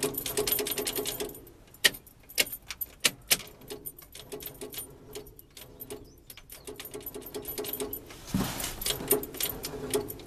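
Starter solenoid of a 1968 Ford F-250 chattering as the key is held to start: runs of rapid clicks with a quieter, sparser stretch in the middle, and no engine cranking or firing. It is the rapid clicking usually called a dead-battery noise, though the battery reads good.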